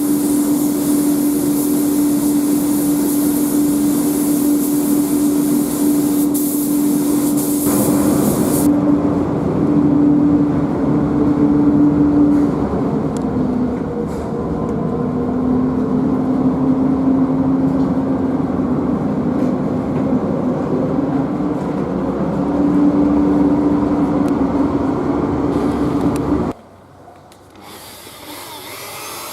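Air spray gun hissing over a steady machine hum during bumper paint work; the high hiss stops about nine seconds in and the hum carries on until it cuts off suddenly near the end.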